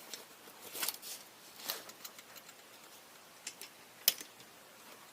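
Scattered light clicks and rustles of the float boat's stripping basket and fittings being handled, with one sharp click about four seconds in.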